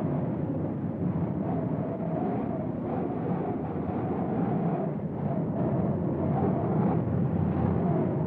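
Strong storm wind blowing in gusts: a dense, low rushing rumble with a faint wavering howl above it.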